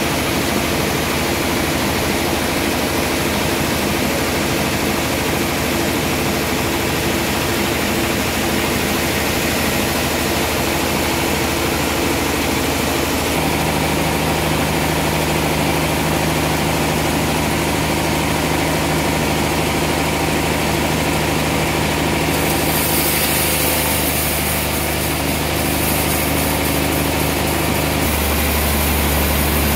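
Large log band saw running steadily, its blade sawing a trembesi (rain tree) log fed past on a rail carriage. The machine's hum changes pitch about halfway through and again near the end.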